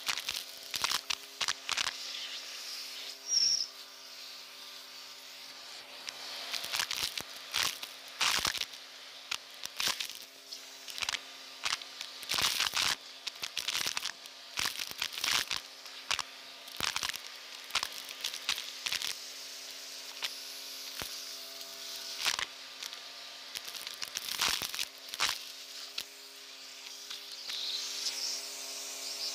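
Vacuum cleaner with a crevice tool sucking up a pile of sand, buttons, sequins and coins from a rug. Irregular crackling and rattling as grit and small hard pieces hit and pass through the nozzle, over the motor's steady hum and rushing air.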